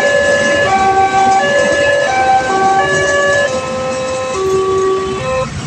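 Railway level-crossing warning siren playing a tune of held electronic notes, each about two-thirds of a second long, stepping up and down in pitch. It stops near the end, leaving the low rumble of traffic.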